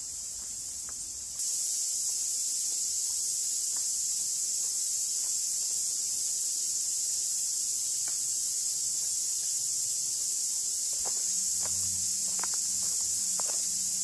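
Steady, high-pitched chorus of insects in the bush, stepping louder about a second and a half in. A few faint taps come near the end.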